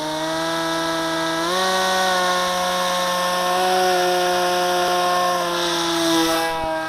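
Battery-electric motor and propeller of an RC flying-wing plane running at high throttle before a hand launch: a steady buzzing whine that steps up in pitch right at the start and again about a second and a half in, then holds, dipping slightly near the end.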